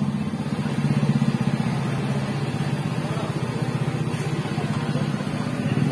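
A small engine running steadily at a low, even pitch, with a fast regular pulse.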